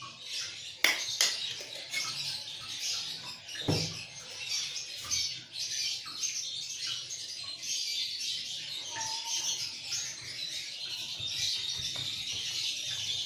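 Small birds chirping steadily in the background. A few light clicks and one duller knock come in the first four seconds, from the spoon and dough being handled on the wooden board.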